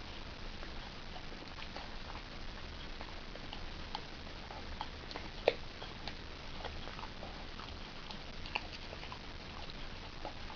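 Shiba Inu chewing on a dog chew: scattered small clicks and crunches of teeth, irregular, with one sharper click about five and a half seconds in.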